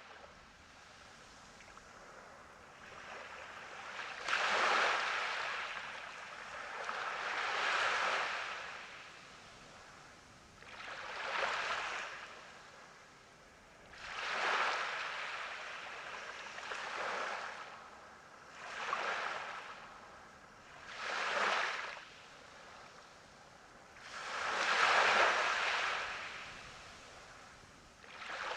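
Surf: waves breaking on a beach one after another, about every three seconds, each a washing hiss that swells and falls away.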